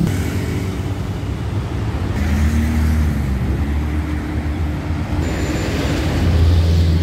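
Busy city road traffic: cars and motorcycles running past, with a steady low engine hum under the noise of tyres.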